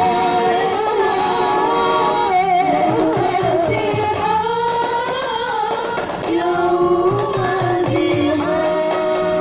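Habsyi group of female voices singing a sholawat melody together, with steady strokes of terbang frame drums underneath.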